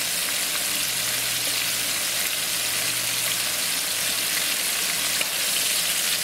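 Bone-in catfish pieces in a light seasoned coating shallow-frying in about half an inch of hot canola oil in a skillet: a steady, dense sizzle with fine crackling.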